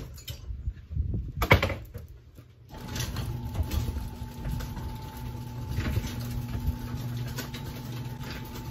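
Metal parts of a tree stand being handled on a workbench: a few sharp knocks and clanks, the loudest about a second and a half in. Just before three seconds a steady machine hum starts and carries on.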